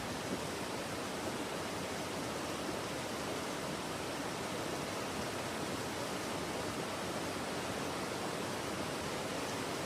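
A waterfall's steady rushing: an even hiss of falling water with no breaks.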